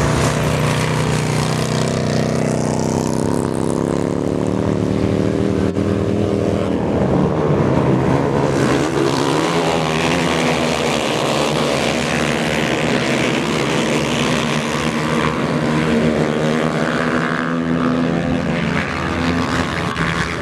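Several racing motorcycle engines revving hard around an ice track. The pitch rises and falls as the bikes accelerate, pass and back off.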